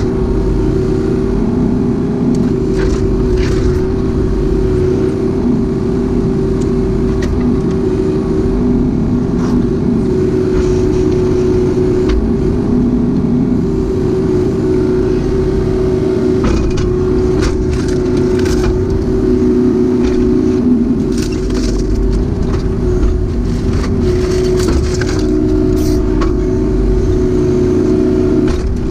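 Kubota U-35-4 mini excavator's diesel engine running steadily at working speed, with occasional sharp knocks and cracks.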